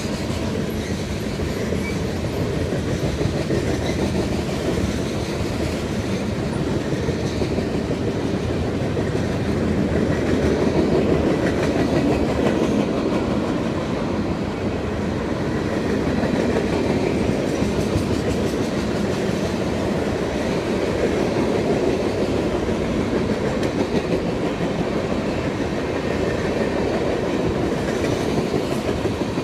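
Cars of a mixed freight train rolling past: a steady rumble of steel wheels on rail with rapid clicking as the wheels cross the rail joints.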